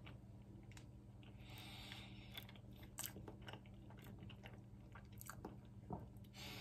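Faint chewing of a forkful of soft ensaymada with ube halaya: quiet mouth sounds with scattered small clicks, over a steady low hum.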